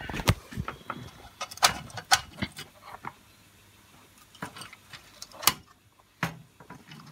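Scattered light clicks and taps of handling, coming irregularly. Most fall in the first three seconds, then a short quiet stretch, then a few more, the loudest about five and a half seconds in.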